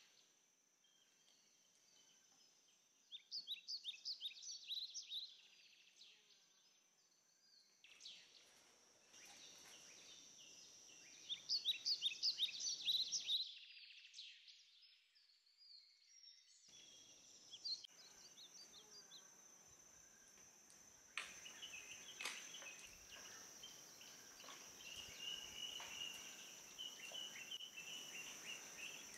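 Tropical forest ambience: a steady high insect drone with bird calls over it. Two bursts of rapid high bird notes come a few seconds in and again near the middle, and a steadier run of repeated chirps fills the last part.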